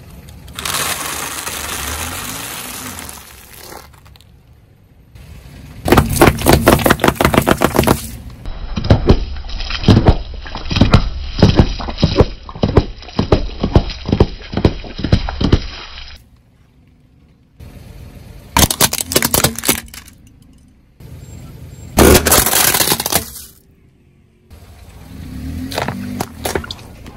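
Car tyre rolling over and crushing a series of objects in turn, among them dry spaghetti sticks in a foam block, small drink cartons and rubbery puffer balls. Several bursts of cracking, snapping and crunching come one after another, with short pauses between them, and the densest run of sharp cracks falls in the middle.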